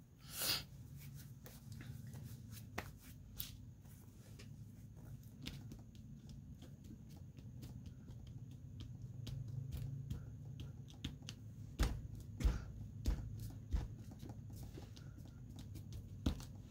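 Paper rustling and crackling as cut pieces of collage paper are handled and pressed down by hand on a table, with a few soft knocks on the table about three-quarters of the way through. A steady low hum runs underneath.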